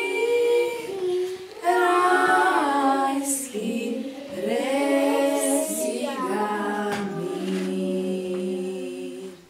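Voices singing a song together without instruments, in long held notes, stopping just before the end.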